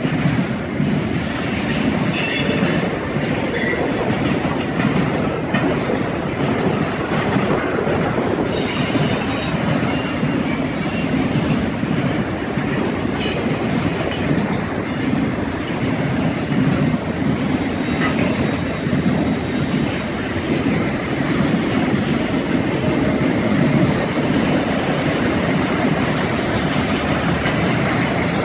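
Autorack freight cars rolling past close by: a steady noise of steel wheels on the rails, with thin high-pitched wheel squeal coming and going through the first half.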